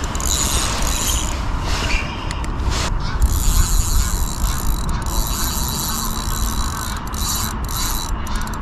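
Fishing reel on a feeder rod being wound steadily, its gears turning, as a hooked fish is played in.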